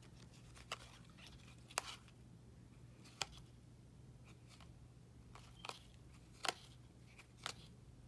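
Trading cards being handled and flipped through: a few short, light clicks and snaps about a second or more apart, the sharpest near two seconds in and past six seconds, over a low steady hum.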